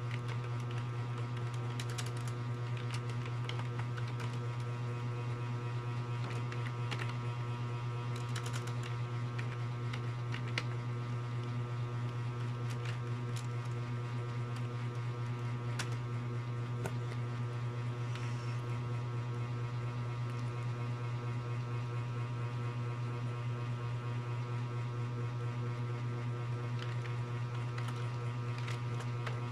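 Steady low electrical hum with many steady overtones, the loudest sound throughout. Over it, a few faint, scattered computer-keyboard key clicks.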